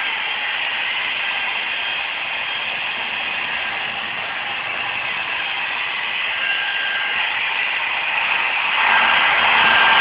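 Handheld hair dryer running: a steady airy rush with a faint motor whine, growing louder about nine seconds in.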